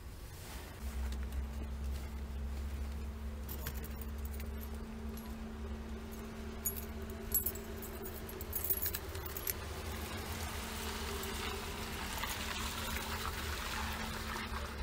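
A bunch of keys jangling and clinking in the hand, in a cluster of jingles between about six and nine seconds in, over a steady low hum.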